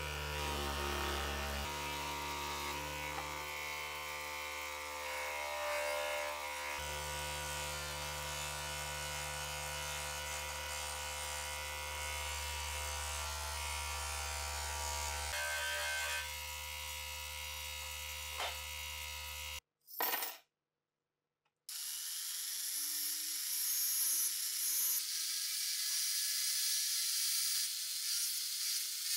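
Electric bench grinder motor running steadily with a buffing wheel polishing metal parts. About twenty seconds in the sound cuts out briefly, then the motor spins up again, its pitch rising, with a steady hiss from the wheel.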